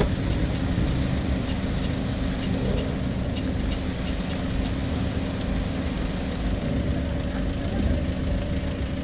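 A car engine idling steadily with a low hum and a few faint ticks.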